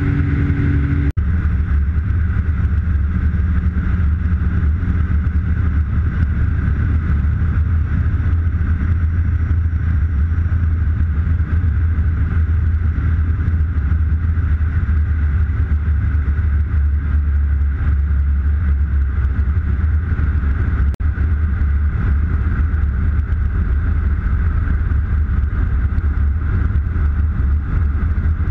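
Steady low drone of a Mark II Dragonfly heard from inside its cockpit: its turbocharged Subaru EA81 direct-drive engine running at low power, mixed with airflow over the canopy. A few steady low tones drop out about a second in, and the level dips briefly there and again about 21 seconds in.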